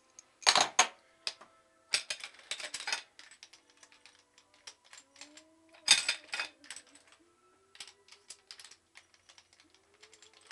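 Ratchet wrench clicking in quick bunches, with small metal clinks, as the camshaft holder bolts on a Honda H22A cylinder head are loosened and taken out.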